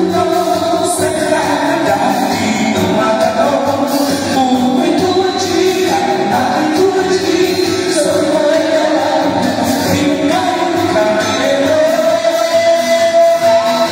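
A pop song sung into a microphone over backing music through a PA system, ending on a long held note.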